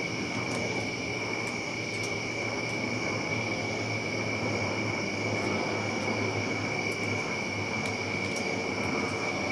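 Steady chorus of night-calling insects, an unbroken high-pitched trill, over a low steady hum, with a few faint ticks.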